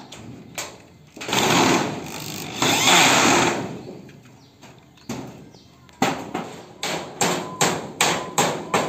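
Corded electric drill boring through the thin galvanized sheet-metal cover of a rice thresher in two bursts of about a second each, followed by a run of sharp hammer blows, about three a second.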